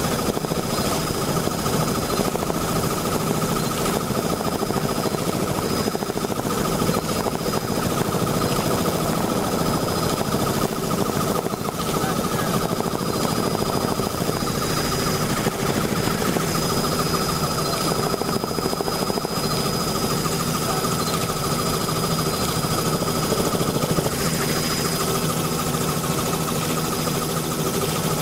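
Steady helicopter cabin noise: engine and rotors running with a rapid, even chopping pulse and no change in pitch.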